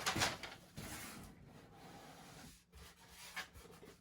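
A cardboard boot box and its paper contents being opened and handled: irregular rubbing and rustling, loudest in the first second, with a few light knocks near the end.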